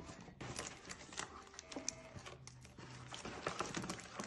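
Paper gift bag and chocolate bar wrappers rustling and crinkling as they are handled, with irregular light clicks and taps.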